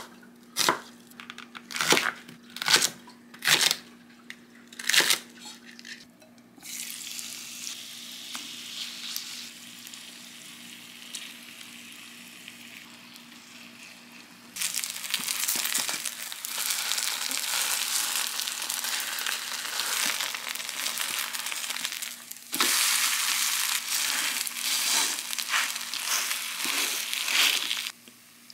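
A kitchen knife slicing onion on a wooden cutting board, about five strokes. Then vegetables sizzle in a frying pan as they are stirred with a spatula. The sizzle turns much louder about halfway through.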